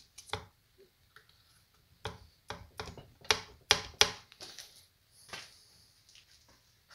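Irregular sharp metal clicks and taps of a one-way (sprag) bearing being handled and fitted into the wet clutch drum of a Suzuki Vinson ATV engine, with the loudest clicks about three to four seconds in.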